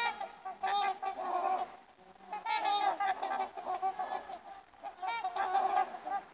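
A flock of trumpeter swans calling: nasal, horn-like honks overlapping in irregular bursts, with a short lull about two seconds in.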